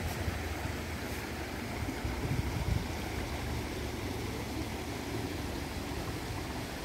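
Shallow rocky mountain stream running over and between boulders, a steady rushing with a low rumble of wind on the microphone. A few low thumps come a little over two seconds in.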